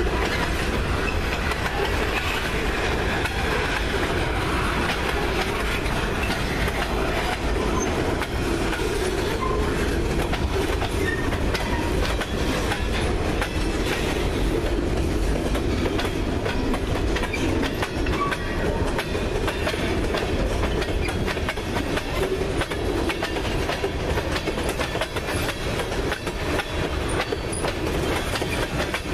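Freight train's boxcars and tank cars rolling past close by: a steady rumble of steel wheels on the rails with a constant run of clicking.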